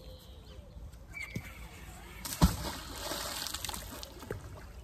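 Magnet-fishing magnet on its rope thrown into a canal, hitting the water with one sharp splash about halfway in, followed by a second or so of spattering water.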